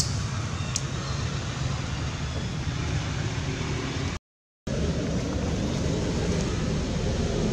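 Steady low rumbling background noise, even and without any pattern, that drops out completely for about half a second a little over four seconds in.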